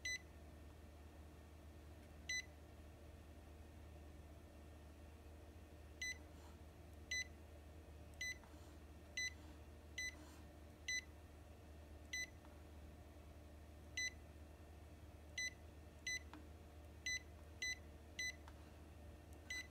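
Epson XP-8500 printer's control panel beeping at each key press as a Wi-Fi password is typed in: about sixteen short, high beeps at irregular intervals.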